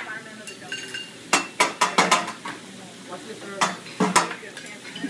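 Metal spatula and fork clanging and scraping on a steel teppanyaki griddle: sharp irregular clinks in two quick runs, one about a second in and one near four seconds in.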